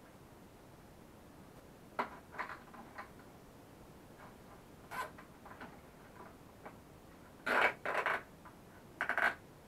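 Scattered clicks and short scraping rustles of plastic being handled as a headlight is fitted into the plastic front fairing of a 70cc children's quad bike, with a few louder scrapes about seven and a half seconds in and again near the end.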